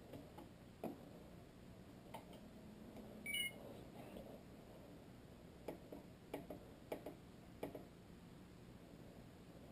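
Faint, scattered clicks and light taps from handling the stereo unit's plastic parts, with one short, high chirp about three seconds in.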